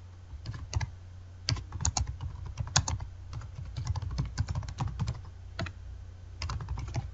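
Computer keyboard typing: a run of irregular keystrokes as a short sentence is typed, with a brief pause near the end, over a faint low hum.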